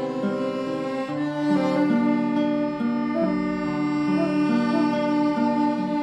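Background film score of bowed strings, cello and violin, playing slow held notes that change pitch every second or so.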